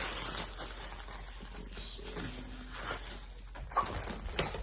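Packaging being rustled and small plastic accessory parts being handled, with a few sharp clicks near the end.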